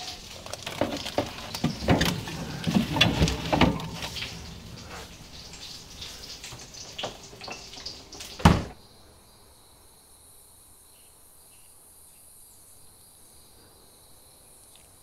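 Clattering and knocks of a tray being handled into a fridge, ending with one loud thump about eight and a half seconds in. After it, a faint steady high chirring of crickets.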